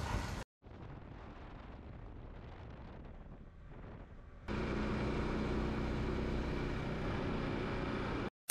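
Yamaha R15 sport motorcycle's single-cylinder engine running at steady road speed with wind rushing past. It is fainter at first, then from about halfway a louder, steady engine hum comes in.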